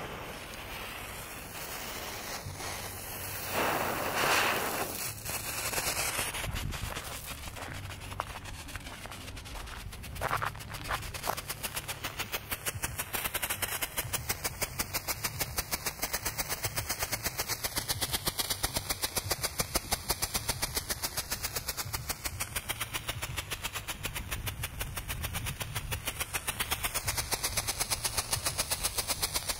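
A small 'Super Annoying' strobe firework hisses as it catches for the first few seconds, then settles into a rapid, even train of sharp pops as it strobes on the ground.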